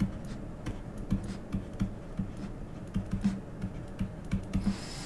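Pen stylus tapping and scratching on a tablet screen while handwriting: a run of light, irregular clicks.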